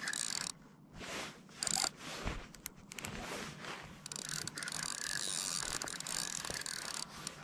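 Spinning reel being cranked to reel in a hooked trout, its gears and ratchet making a fast, steady clicking whir. The cranking pauses briefly about half a second in.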